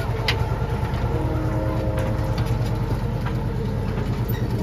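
Miniature zoo train running: a steady low rumble with a few short clicks and knocks.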